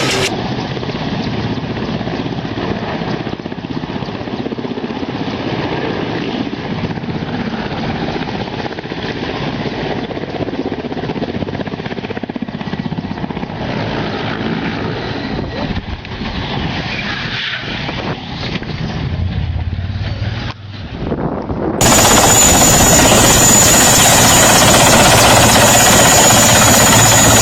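Helicopter noise, a steady rush of rotor and engine sound; after a cut about 22 seconds in, a louder helicopter with a steady high whine over it.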